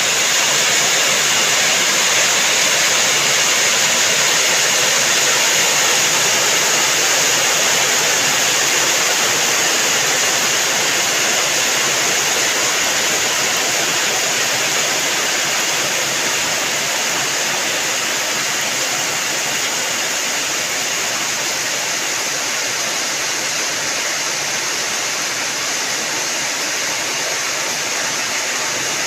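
Steady rain, an even unbroken hiss of falling water.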